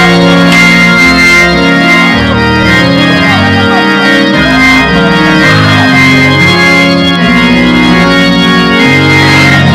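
Organ playing sustained chords that change every second or so, loud and continuous.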